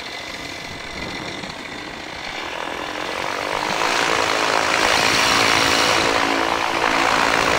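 Flylight PeaBee flexwing microlight trike's engine and propeller running on the ground, getting louder about halfway through as power comes up, then holding steady.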